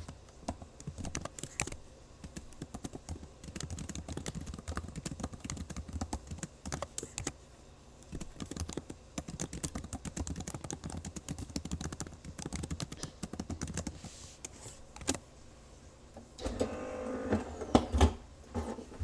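Typing on a computer keyboard: quick runs of key clicks with short pauses, thinning out toward the end. Near the end comes a louder, noisier stretch with a couple of sharp knocks.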